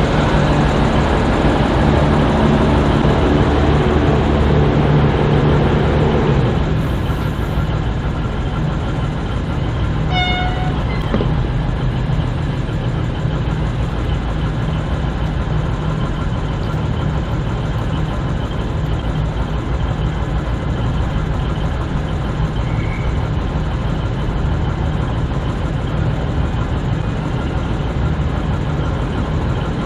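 V/Line VLocity diesel railcar running at the platform, its engine note loud and steady, then dropping away about six seconds in. A brief pitched tone sounds about ten seconds in, then the train keeps up a steady rumble.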